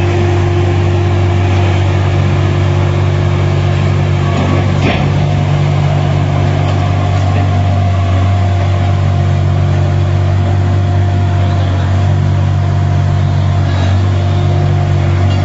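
Truck engine running steadily at a constant speed, a low, even drone with a brief knock about five seconds in.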